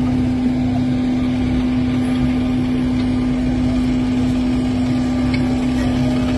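An engine running steadily with a constant droning hum and a rumble underneath, holding the same speed throughout.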